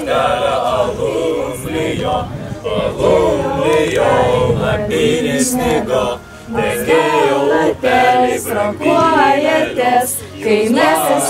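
A small group of young voices singing together unaccompanied, in phrases with short breaks between them.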